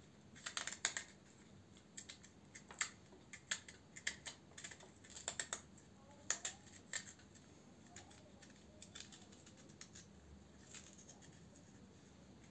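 A firm black radish being hollowed out, the tool cutting and scraping into its flesh in short crisp scrapes and clicks. They come in quick clusters through the first half and grow sparser and fainter after that.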